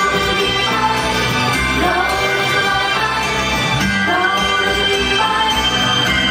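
A female idol group sings a pop song live into handheld microphones over a loud backing track with a steady bass line.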